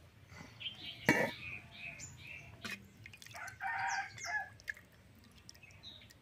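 Domestic chickens calling: a run of short calls in the first two seconds, then one longer call, like a rooster's crow, about three and a half seconds in. A single sharp metallic clink about a second in, typical of a steel serving spoon striking a steel plate.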